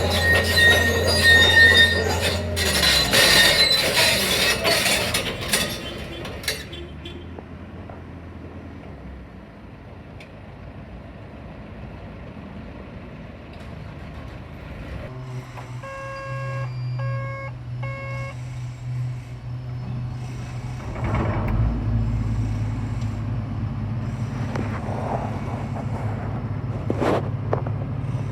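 Tracked excavator's steel tracks squealing and clattering for the first several seconds, then fading. Its diesel engine then runs steadily under three short alarm beeps about midway, and works harder from about two-thirds in.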